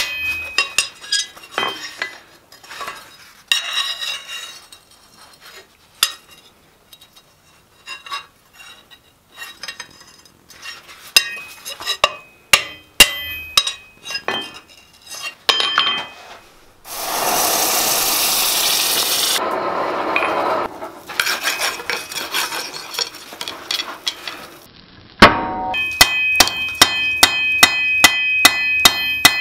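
Hand hammer striking a mild steel flat bar on an anvil, with irregular blows that ring. Midway a loud steady rushing noise lasts about two seconds, followed by more broken rushing noise. Then steady hammering on the red-hot bar, about two blows a second, with the anvil ringing loudly.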